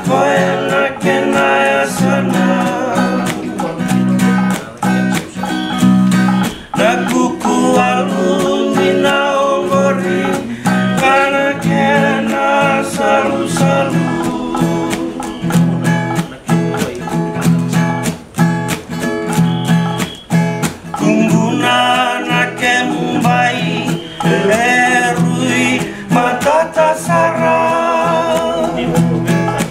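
Men singing a song in Fijian to a strummed acoustic guitar.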